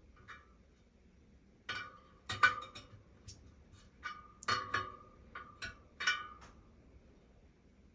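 Light metallic clinks and taps in irregular clusters, several ringing briefly with a clear tone, from hand tools working on the wire spokes of a speedway wheel.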